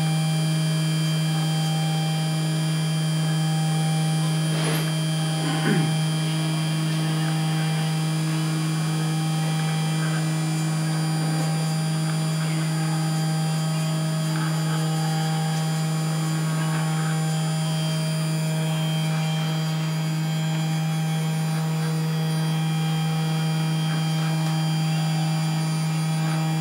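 Desktop CNC PCB milling machine running a cut, its spindle motor giving a steady, even hum as the cutter works slowly through the stock.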